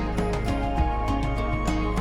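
Background music: gentle, new-age style instrumental with held notes over a steady beat.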